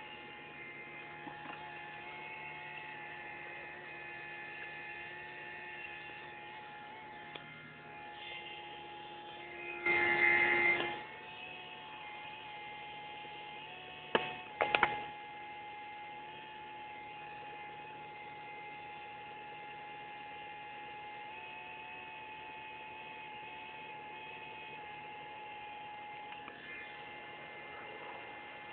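Bosch 044 electric fuel pump whining steadily, its pitch shifting now and then. These are pitch changes that the owner cannot trace to the pump's power supply or to the fuel mixture. About ten seconds in there is a much louder noise lasting about a second, and a few sharp clicks follow a few seconds later.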